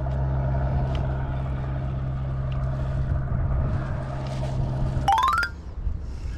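Steady, even engine hum at a constant pitch that cuts off abruptly about five seconds in, ending with a brief rising run of clicks.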